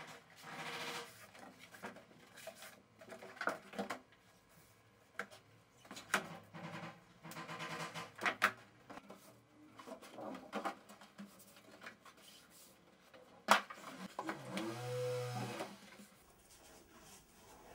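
Sheets of paper and card mounts for photographic prints being slid, folded and laid out by hand, rustling and scraping against each other and the table, with a sharp click about two-thirds through and a short low hum near the end.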